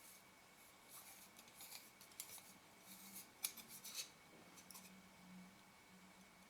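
Faint, scattered light clicks and scraping of a threaded ring being screwed by hand onto a Leica Summicron 35 mm lens barrel, mostly between about one and five seconds in.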